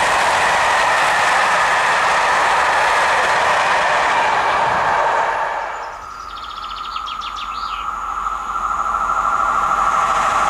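Loaded grain hopper wagons of a freight train roll past with a steady rush of wheel and rail noise, which fades away about five to six seconds in as the end of the train goes by. A bird chirps briefly. Then a regional passenger multiple unit approaches, and its steady whine and rolling noise grow louder toward the end.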